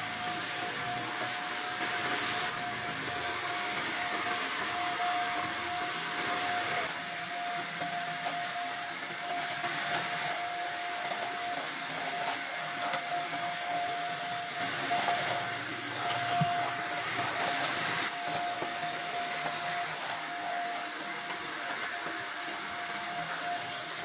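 Stick vacuum cleaner running steadily as it is pushed over a tiled floor: a constant motor whine over the rush of air.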